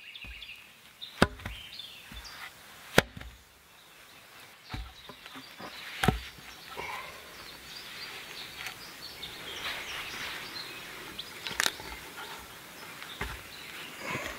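Scattered sharp wooden knocks as cut logs and poles are handled and set down on the ground, the loudest about three seconds in.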